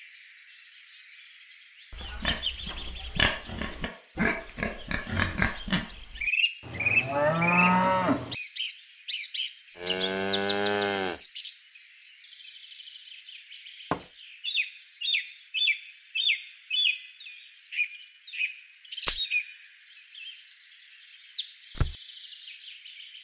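Farm-animal sound effects: choppy animal calls, then a cow mooing twice, each moo long and low. After that a bird chirps in a quick run of short high chirps, about two a second, over faint bird song.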